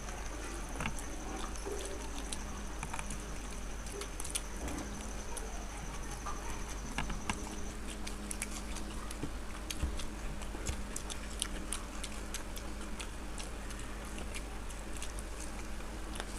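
People chewing egg devils (breaded, deep-fried boiled eggs): scattered small wet clicks and smacks of eating, over a steady low hum.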